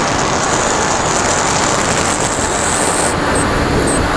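Steady wind rushing over the onboard camera of an FPV model airplane in flight, with a thin, high whine from its motor and propeller that slowly rises in pitch and breaks up near the end.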